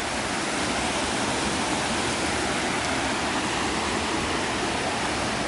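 Waterfall and its stream rushing steadily, an even wash of falling water with no breaks.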